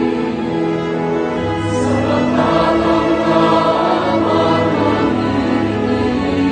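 Choral hymn with orchestra: a choir sings long-held chords over an orchestral accompaniment, and the chord changes about two seconds in.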